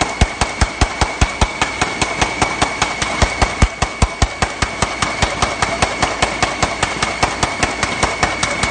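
High-speed paper bag making machine running, with a rapid, even clacking of about six strokes a second over a steady high whine.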